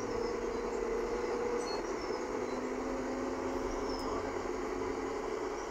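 Alexander ALX400 double-decker bus standing with its diesel engine idling: a steady low rumble with a hum that shifts to a lower pitch about two seconds in.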